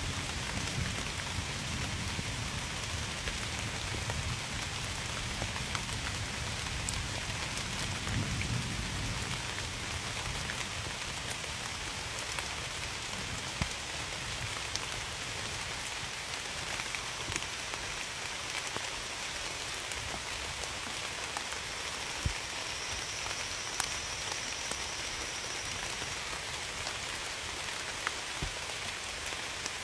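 Steady rain falling, with single drops tapping sharply now and then. A low rumble of distant thunder runs under it at first and dies away about a third of the way through.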